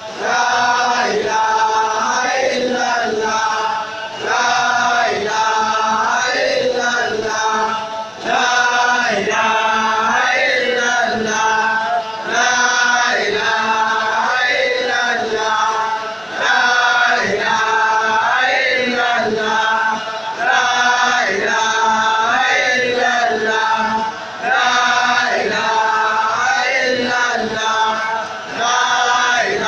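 Crowd of men chanting dhikr together, the same phrase repeated over and over, with a short break about every four seconds.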